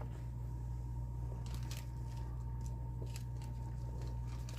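Faint rustling and a few light clicks of small objects being handled and moved about while searching, over a steady electrical hum.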